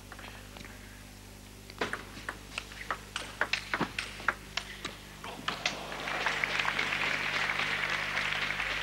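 Table tennis rally: the ball clicking off bats and table about three times a second for some four seconds, then the crowd applauding the point from about six seconds in.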